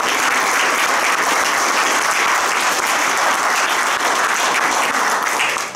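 Audience applauding: a steady round of clapping that starts right after the call for a hand and fades out near the end.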